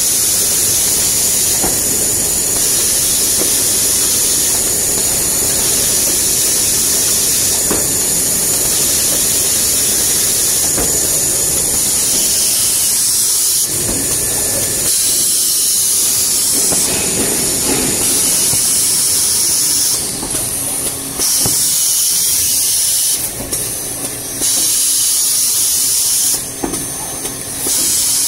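Jumbo-roll toilet paper production machinery running: a loud, steady high hiss over a mechanical rumble. The hiss cuts out briefly a few times near the end.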